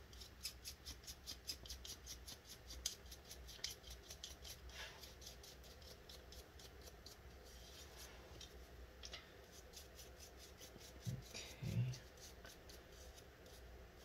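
Faint quick ticking and scratching, about five ticks a second, as a laptop cooling fan is cleaned by hand, thinning out after about eight seconds. A brief low murmur about eleven seconds in.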